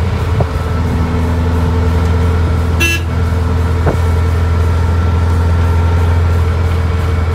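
Supercharged 1967 VW Beetle's air-cooled 1600 flat-four engine running steadily under way, heard from inside the cabin as a loud, even drone. A couple of short clicks are heard, and a brief high-pitched tone sounds about three seconds in.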